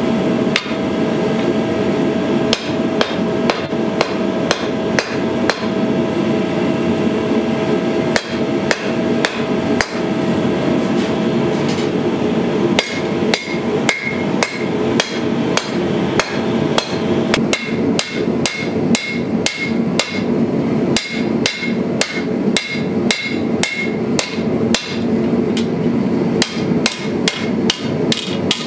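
Hand hammer forging a red-hot steel sword blade on an anvil: a long run of sharp blows, a few strikes with pauses at first, then a quicker steady rhythm of about two a second from a little past halfway, many blows leaving a short metallic ring from the anvil. A steady rushing noise runs underneath.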